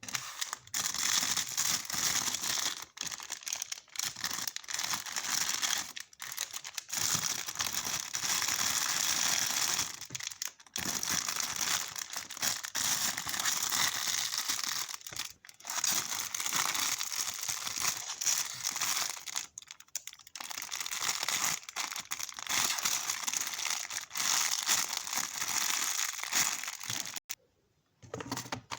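Packaging crinkling and rustling almost without pause as stickers and a squishy toy are packed by hand, with a brief break near the end.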